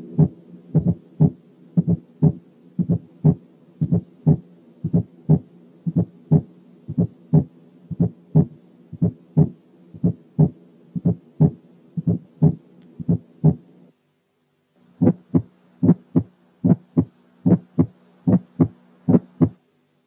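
Recorded heart sounds, played as two clips one after the other. In the first, each first heart sound is preceded by a softer, lower-pitched, duller fourth heart sound. After a brief break about 14 seconds in, the second clip has each first heart sound followed by a higher-pitched, snapping ejection click.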